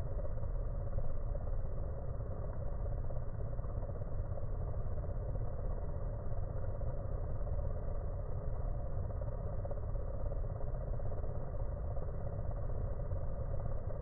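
Honey bees fanning their wings at the hive entrance, a steady buzz slowed down so that it sounds like a helicopter, low and unbroken. The fanning cools the inside of the hive and drives out moisture.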